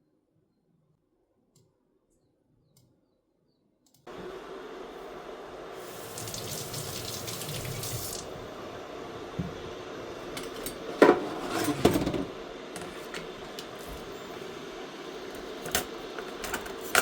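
After about four seconds of near silence, water starts running from a tap into a sink and runs steadily, briefly stronger soon after it starts. Two loud knocks about two-thirds of the way through, and a few lighter ones near the end.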